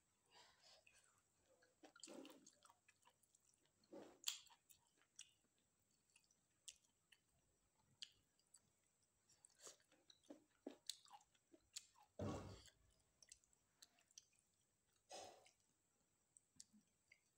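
Quiet, close-miked chewing of mouthfuls of rice eaten by hand, with soft wet clicks and squishes from the mouth and fingers. A few louder smacks come through, and about twelve seconds in there is a soft thump.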